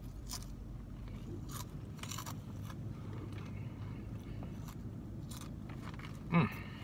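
Crunchy potato chips being chewed: sour cream and ranch flavoured chips, crackling in short bursts at the start and then more sparsely. Near the end comes one brief vocal sound from the eater that falls in pitch.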